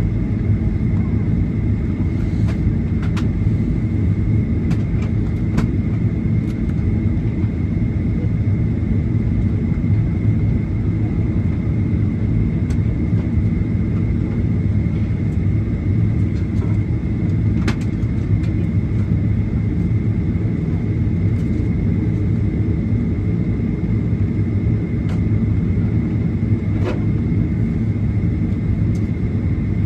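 Airliner engine noise heard from inside the passenger cabin: a steady, loud rumble with a faint steady high whine and a few light clicks.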